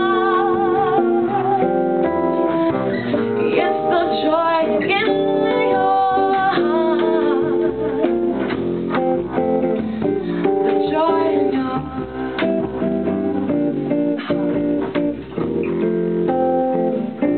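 Live jazz performance: a woman singing with vibrato on held notes over a hollow-body jazz guitar accompaniment.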